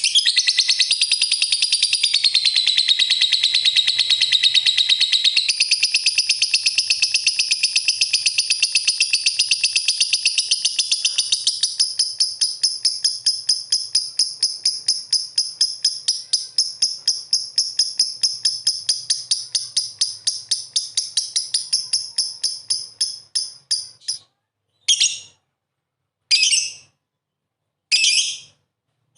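Lovebird chattering: a long, fast run of high-pitched repeated chirps that gradually slows, then breaks into a few short bursts with gaps between them near the end.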